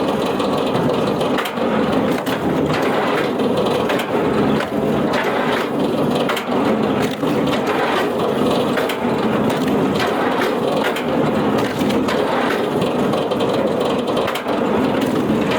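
A wood-processing machine running steadily as it crushes and splinters wood, with frequent sharp cracks of breaking timber.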